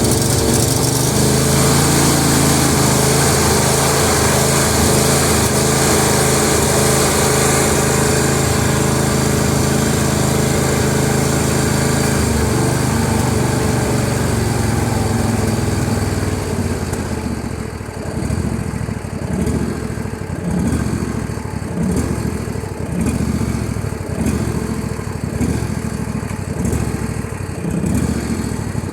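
Husqvarna L118 lawn tractor engine running steadily, then dropping to low idle about two-thirds of the way in. At low idle it runs unevenly, swelling and fading about once every second and a half.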